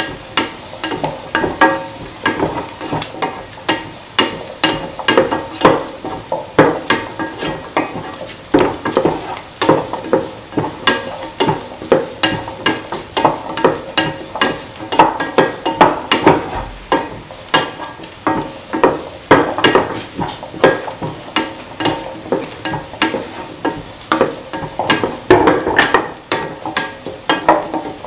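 A utensil scraping and knocking against the pan, about two strokes a second, as sliced onions, shallots and garlic are stirred while they sauté in oil, with a light sizzle underneath.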